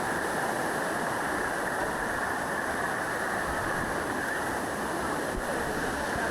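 Water rushing down the cascades of Dunn's River Falls: a steady, even rush of falling water with no breaks.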